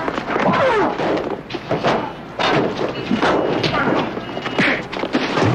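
Street fight: a rapid series of thuds and blows, with men grunting and shouting.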